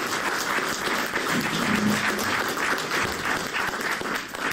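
Audience applauding, the clapping beginning to die away near the end.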